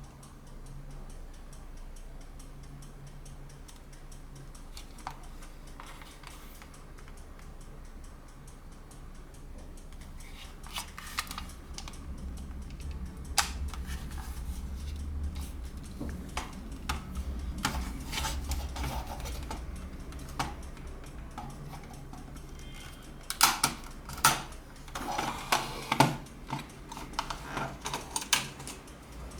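Sharp clicks and short metallic rattles from a toy revolver that fires iron balls, as it is handled, in scattered bursts with the densest run a few seconds before the end.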